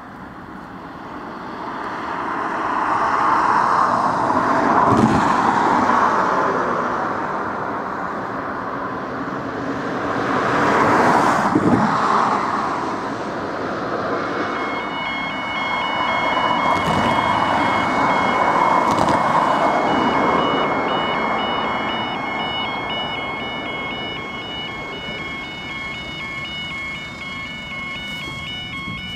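Traffic passing on a busy road. About halfway through, a level crossing's alarms start up: a repeating electronic tone pattern that keeps going, from alarms the uploader calls very faulty.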